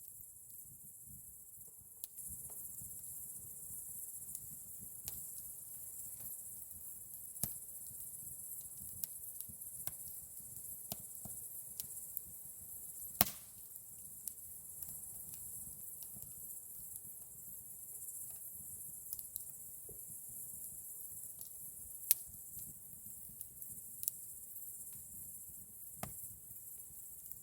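Campfire burning with an irregular crackle of sharp wood pops, the loudest about halfway through, over a steady high hiss.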